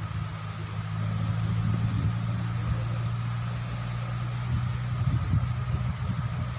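Wind buffeting the phone's microphone: a gusty low rumble that rises a little about a second in.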